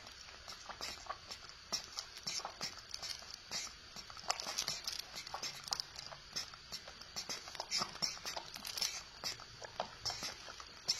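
Pet monkeys drinking milk: quick, irregular wet sucking and lip-smacking clicks, several a second.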